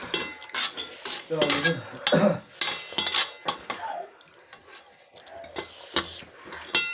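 Metal spoons clinking and scraping against bowls while noodles are stirred and eaten, with many short clicks and one clink near the end that rings briefly.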